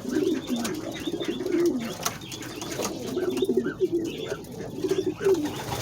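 Domestic fantail pigeons cooing, several low warbling coos overlapping one after another.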